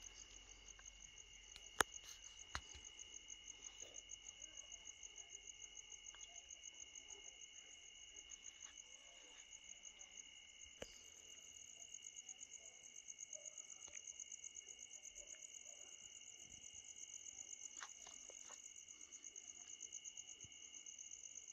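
Crickets chirping in a steady, rapid, evenly pulsing chorus, with a few faint clicks, the sharpest about two seconds in.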